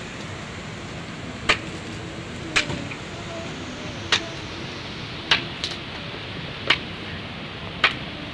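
Steady rush of water noise from rain and the river, with six sharp knocks spaced a little over a second apart.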